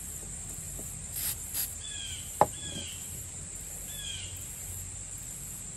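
Steady high trilling of insects, with a few short falling bird chirps. A single sharp click about two and a half seconds in, from the small carburetor parts being handled.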